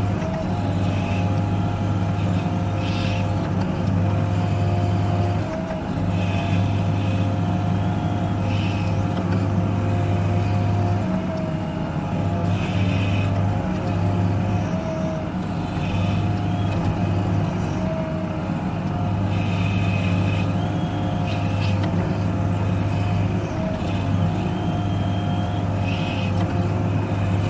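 Heavy-machine diesel engine running steadily, heard from inside a cab, with a thin whine that shifts slightly in pitch while an excavator digs snow. Short hissing flares come every few seconds.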